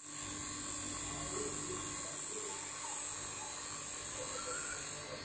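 Refrigeration machinery running steadily: a motor's low buzz and hum under a constant high hiss, which cuts out near the end.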